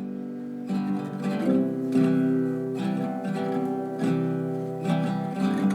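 Background music: a strummed acoustic guitar playing a steady chord progression.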